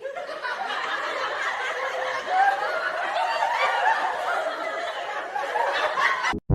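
Several people laughing and snickering at once, voices overlapping. It cuts off abruptly just before the end.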